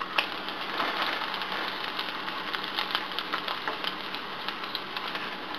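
Battered dulong (silverfish) patties sizzling in shallow hot oil in a frying pan, a steady sizzle dotted with fine crackles, with one sharper tick just after the start.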